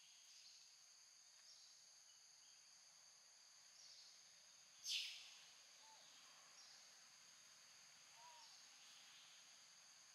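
Faint, steady high drone of insects, with short high chirps repeating every second or so, and one sharp, louder high-pitched call about five seconds in.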